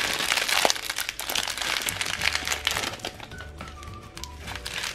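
Small plastic sachets of Orbeez water beads crinkling as they are handled, most densely in the first three seconds, with background music.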